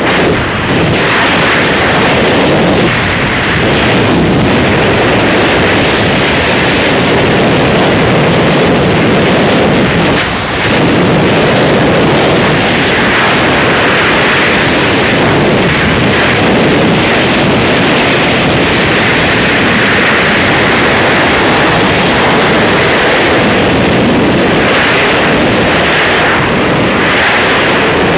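Loud, steady rush of wind buffeting the microphone of a helmet camera in wingsuit flight, dipping briefly about ten seconds in.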